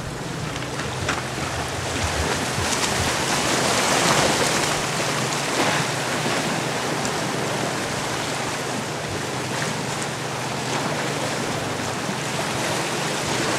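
Ocean surf washing against jetty rocks, a steady rushing wash that swells to its loudest about four seconds in and then eases.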